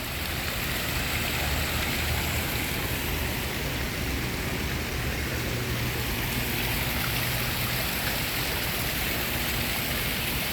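Steady rush of running water, an even hiss with a low rumble underneath.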